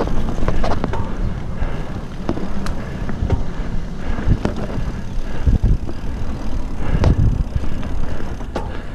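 Mountain bike riding fast down a dirt singletrack: wind buffeting the microphone over tyre noise, with repeated short clatters and knocks as the bike jolts over bumps.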